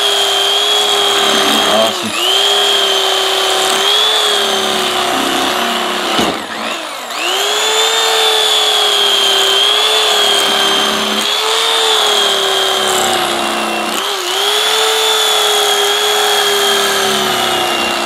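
Electric carving knife running as it slices through a cooked beef roast: a steady motor whine that sags in pitch and recovers several times. The whine breaks off for about a second near six seconds in, then climbs back up to speed.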